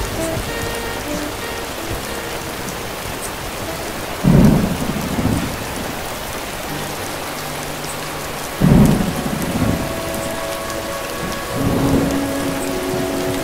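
Steady rain falling on a hard surface, with two sudden thunderclaps about four seconds apart and a softer rumble of thunder near the end. Faint music plays underneath.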